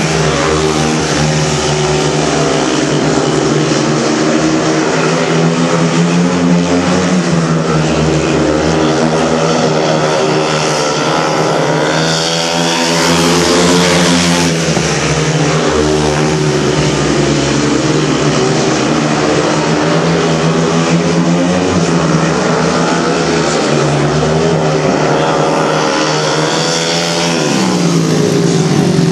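Several 500cc single-cylinder methanol-burning speedway motorcycles racing, loud, their engine note rising and falling with the throttle through the bends, with a sharp climb a little before halfway and a dip and climb again near the end.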